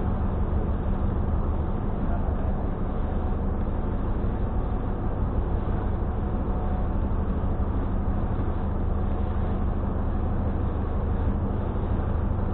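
Steady low engine drone aboard a car ferry during the crossing, an even hum with no change in pitch.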